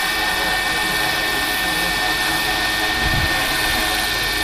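Large five-bladed RC helicopter flying overhead: steady rotor and drive noise with a constant high whine.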